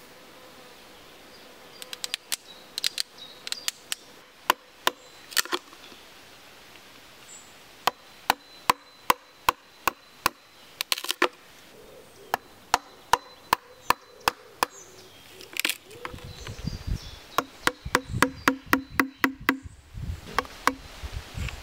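Steel knife blade hacking into wood, a series of sharp irregular knocks as chips split off, with quicker, duller strikes near the end.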